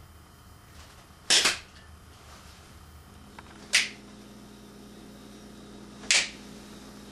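Three sharp hand claps, evenly spaced about two and a half seconds apart. A faint steady hum comes in about three seconds in.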